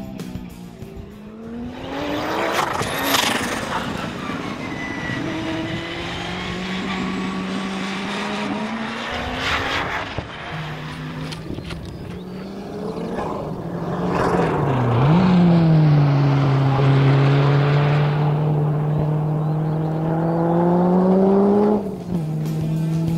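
850bhp Audi Quattro Sport race car driving hard past on track. Its engine note rises and falls through acceleration and gear changes, with the loudest, steadiest pull in the second half.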